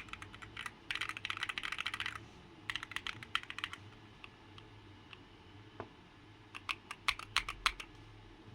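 Typing on a Keychron Q1 mechanical keyboard with Akko Cream Blue Pro switches, an aluminium plate and a two-layer tape mod. Fast bursts of keystrokes are broken by pauses, with a few louder single key presses near the end.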